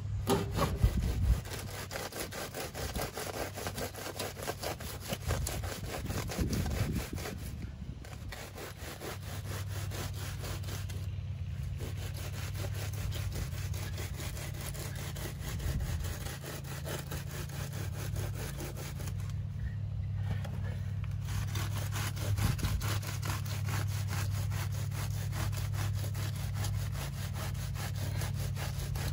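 A wooden board worked back and forth in a sawing motion across the edges of a concrete form, scraping over wet concrete as it screeds a freshly poured pad level. The strokes are steady and regular, with a few brief pauses.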